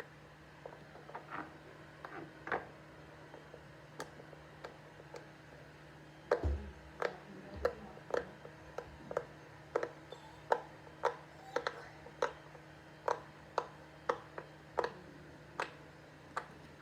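Silicone pop-it fidget toy, its bubbles pressed one at a time, each giving a short pop. A few scattered pops come first, then a low thump about six seconds in, then a steady run of pops at about one to two a second.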